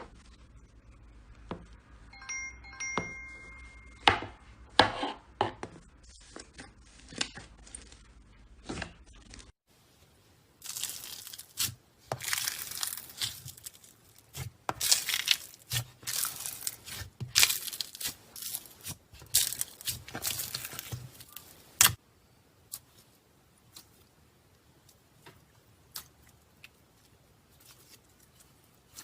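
Hands squishing and stretching slime: sticky pops, clicks and crackles, denser and louder in the middle stretch, then sparse clicks. A few brief high tones sound about two seconds in.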